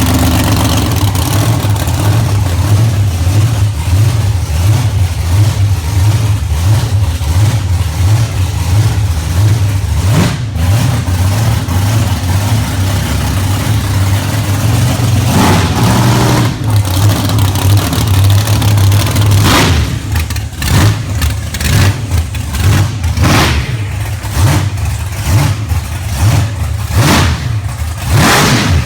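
Big-block Chevy V8 in a custom Corvette idling loud and lumpy, then revved in a series of short, sharp throttle blips over the last third or so.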